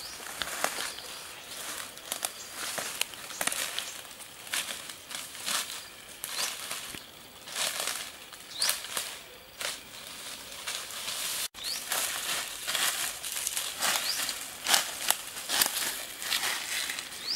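Footsteps and rustling in dry grass and brush, with dry stalks crackling as they are pushed through and pulled by hand, in irregular bursts.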